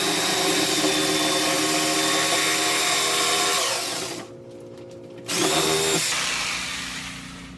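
Electric power saw cutting through a board: a steady motor whine and cutting noise that stops about four seconds in, then a second short burst of cutting that winds down near the end.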